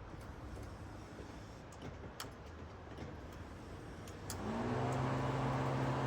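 A few faint clicks, then about four seconds in the Subaru Legacy's starter cranks the engine with a steady whine that spins up, holds for about two seconds and winds down without the engine running on.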